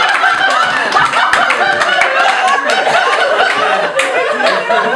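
Theatre audience laughing, many voices overlapping, with scattered clapping.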